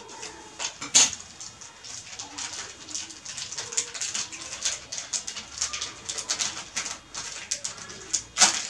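Paper manual pages and a thin plastic bag rustling and crinkling as they are handled and the bag is pulled open, with a sharp click about a second in and another near the end.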